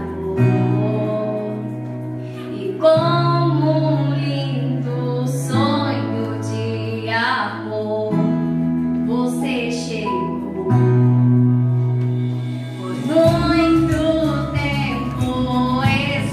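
A woman singing a hymn into a microphone over an instrumental accompaniment, with low held notes changing every few seconds beneath the melody.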